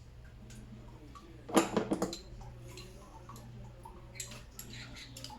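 Metal tools and parts clinking and knocking during hand work on a car's cooling system: a cluster of sharp clanks about a second and a half in, then lighter ticks near the end, over a steady low hum.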